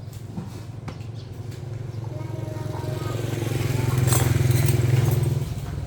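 An engine running with a steady low hum, growing louder to a peak about four seconds in, then dropping away near the end.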